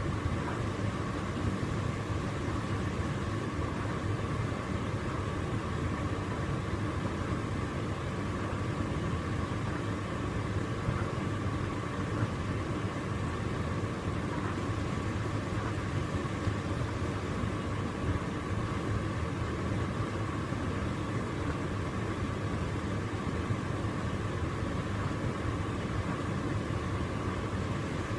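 Hotpoint tumble dryer running, its drum turning a dog's bed, with a steady motor and fan hum and a thin steady whine over it.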